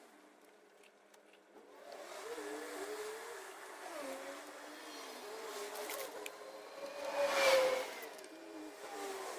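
A motor vehicle's engine sound, growing loudest about seven and a half seconds in.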